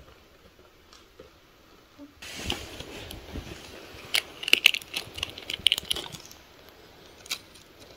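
Fabric rustling as a quilted kotatsu blanket is pushed aside, with a burst of sharp crinkling clicks in the middle and one more click near the end.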